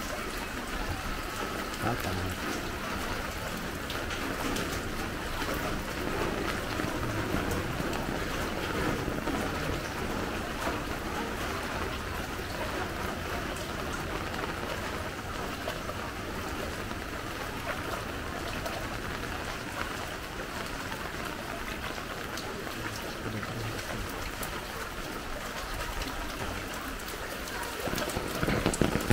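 Steady hiss of water in a flooded street, with faint voices a few times; it grows louder near the end.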